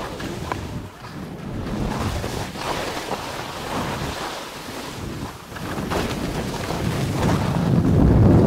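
Wind rushing over the microphone of a body-worn camera during a fast descent on snow, mixed with the scrape of sliding over the snow. It grows louder over the last few seconds.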